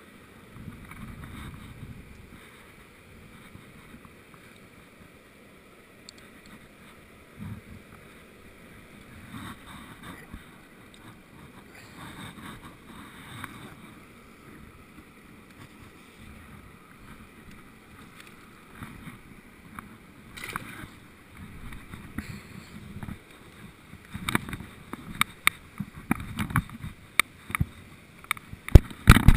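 Hiking boots scuffing and stepping on rock, with clothing rustling and a low rumble of wind on the microphone. In the last few seconds, loud sharp knocks and scrapes come quickly one after another.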